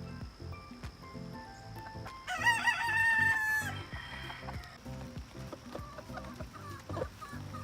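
A rooster crows once, about two seconds in: a single loud call lasting about a second and a half that drops in pitch at the end. A few shorter, fainter calls follow.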